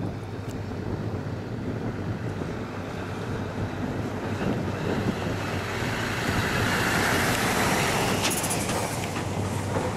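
Airbus A400M's four turboprop engines and propellers flying past, the noise swelling to its loudest about seven to eight seconds in.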